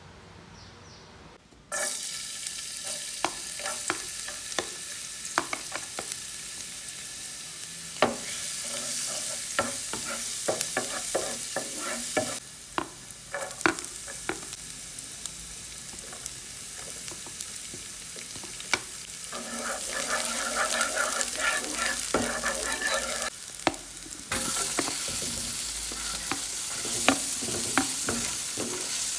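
Food sizzling as it fries in a pan, with a utensil stirring it and clicking and scraping against the pan. The sizzle starts suddenly about two seconds in and changes abruptly in level several times.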